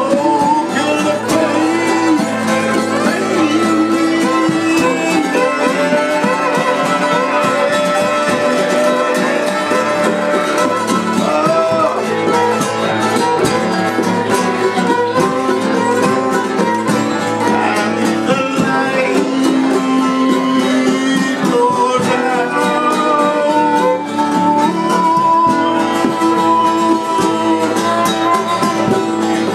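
Acoustic trio of fiddle, acoustic guitar and mandolin playing a tune together, the fiddle carrying the melody over strummed guitar and mandolin.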